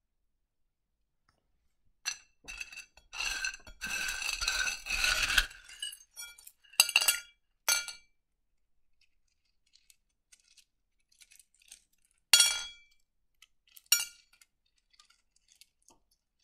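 Pieces of rough opal clinking against each other and against the dish as they are handled: a run of rattling clatter about three to five seconds in, then a few single clinks.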